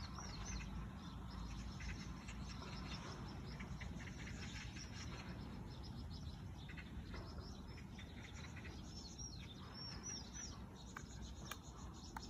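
Faint bird chirps over a low, steady outdoor background. A few short chirps come about half a second in, and a cluster comes around nine to ten seconds in.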